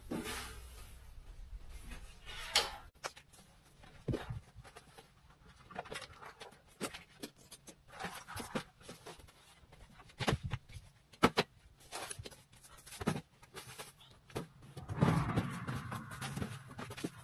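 Camping gear and belongings being handled in a small room: irregular knocks and clicks of objects set down and moved, with a longer rustle near the end.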